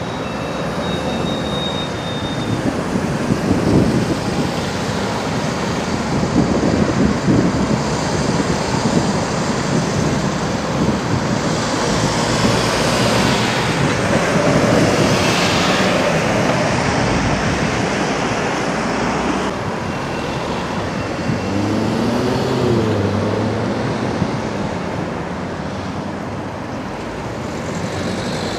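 Heavy lorries and other traffic passing at a roundabout: diesel engines running and tyres on the road, a continuous traffic noise. In the later part one engine's pitch rises and falls as it changes speed.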